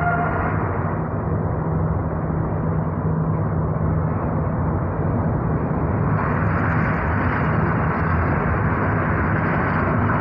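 Train running along the track, heard from aboard: a steady low engine hum that fades about four to five seconds in, then a brighter rumble and hiss of the wheels on the rails that grows louder from about six seconds in.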